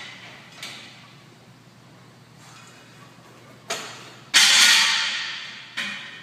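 Gym weights clanking: a few light clicks and a sharp knock, then a loud metal clang that rings and fades over about a second and a half, and one more knock near the end.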